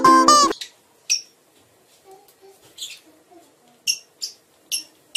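Plucked-string music cuts off about half a second in. Then pet parrots give short, high chirps, single and spaced apart, coming more often near the end.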